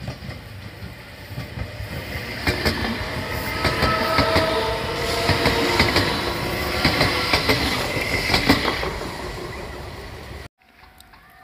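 Electric commuter train passing close by: the rolling noise builds up, with rapid clicks of wheels over rail joints and a whine in the middle of the pass. The sound cuts off suddenly near the end.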